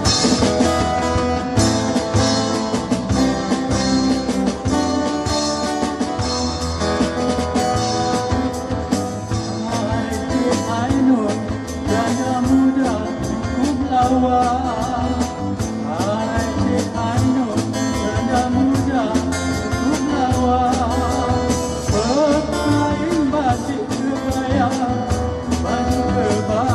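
Live band music: a strummed acoustic guitar and a drum kit, with a man's singing voice coming in about eight seconds in.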